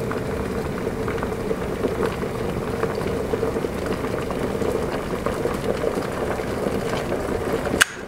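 Electric kettle at a full boil, a steady bubbling rush that stops suddenly with a click near the end as the kettle switches off, the water done.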